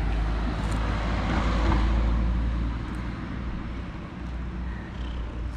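Street traffic noise: a vehicle passing with a low rumble and tyre hiss that swells about a second and a half in, then eases off.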